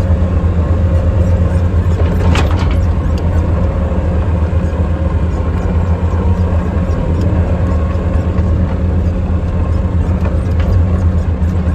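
Large engine running steadily close by, a loud low drone with no change in speed.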